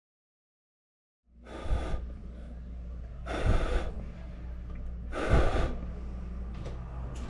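Three loud breaths, exhales close to the microphone about two seconds apart, over a steady low room hum that cuts in about a second in.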